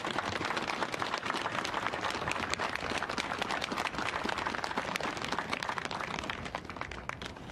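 Audience applauding: many hands clapping densely, thinning out near the end.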